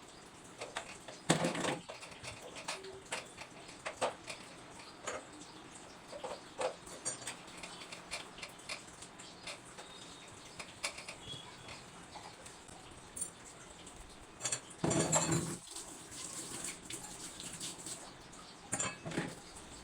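Kitchen dishes, pots and utensils clinking and knocking as they are handled and put away: scattered small knocks, with louder clatters about a second in and again around fifteen seconds.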